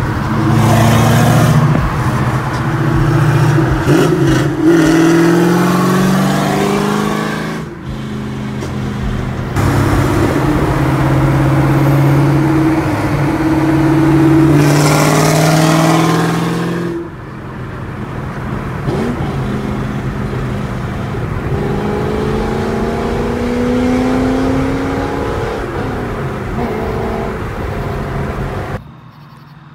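1998 C5 Corvette's LS1 V8, straight-piped through long-tube headers, a catless X-pipe and no mufflers, pulling hard at full throttle. The loud exhaust note climbs in pitch over several runs cut together, heard from a following car.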